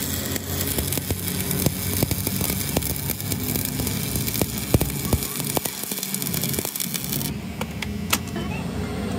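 Electric arc welding on a steel axle shaft: a steady crackling hiss with scattered sharp pops, over a steady low hum. The hiss thins out about seven seconds in.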